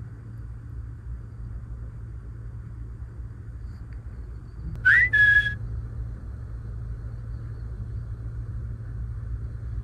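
A steady low rumble, with a short two-note whistle about five seconds in: a quick rising note, then a briefly held higher note.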